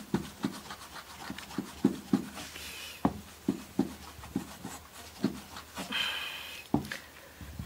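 Steel knife blade being stropped on a leather strop charged with polishing compound: short soft strokes, about two a second. This is the final polishing pass after 5000-grit sanding, bringing the blade to a mirror finish.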